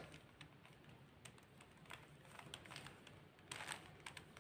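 Faint, scattered clicks of a 3x3 Rubik's cube's layers being turned, with a short run of clicks about three and a half seconds in.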